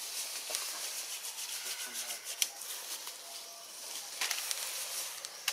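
Outdoor treetop ambience: a steady high hiss with scattered rustling and sharp clicks, a cluster of louder clicks a little past four seconds in.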